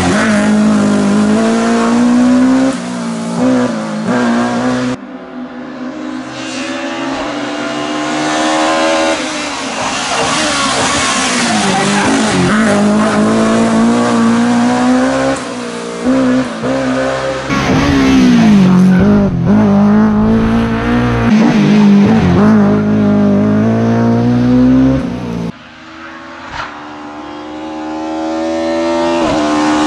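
BMW Compact F2/14 rally car's engine revving hard, its pitch climbing and dropping again and again as it accelerates, brakes and shifts through the gears. The sound jumps abruptly three times as one pass cuts to the next.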